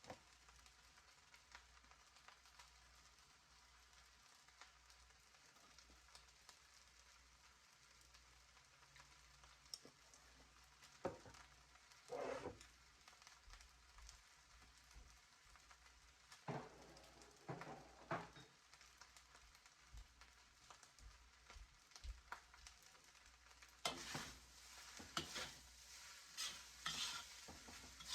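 Mostly quiet, with scattered light clicks and scrapes of a cooking utensil against a pot, coming thicker near the end.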